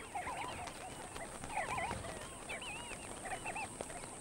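A flock of sandgrouse calling in flight: many short chirping calls in quick succession, overlapping one another.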